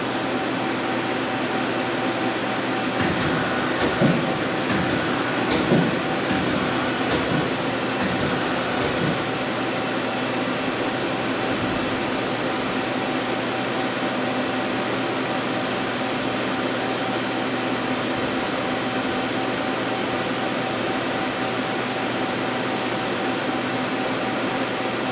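Steady hum of powered-up machinery, a constant drone with a couple of low tones held throughout, with a few faint knocks in the first several seconds.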